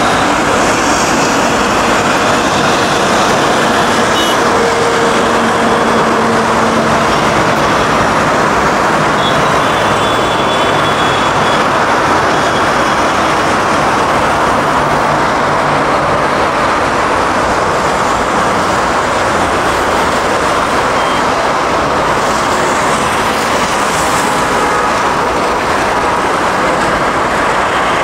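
Steady, loud drone of an ATR 72 turboprop airliner's engines and propellers as it climbs out after takeoff.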